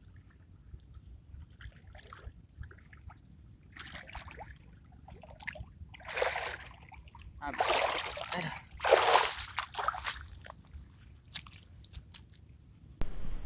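Pond water splashing and sloshing as a man wading in it hauls up and gathers a cast net and moves through the water. The loudest splashes come about halfway in and again a little later, then die down to a few small drips.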